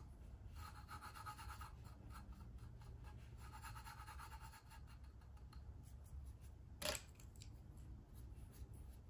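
Faint scratchy rubbing of fingertips pressing loose glitter into glue on the side of a glitter-coated stainless tumbler, in two short stretches, then a single sharp tap about seven seconds in.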